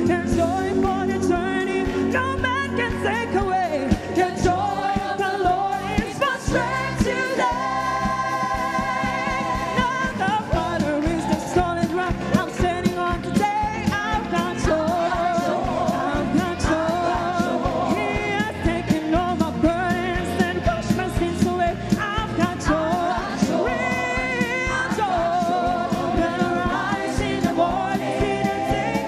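Worship song: singing over a band with a steady beat, with choir voices.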